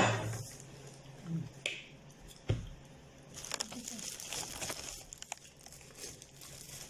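Quiet handling sounds of a meal at a table: a knock at the start, then light clicks and short rustles as bread and food are handled and torn.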